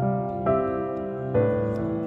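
Background music played on piano, with new notes struck twice.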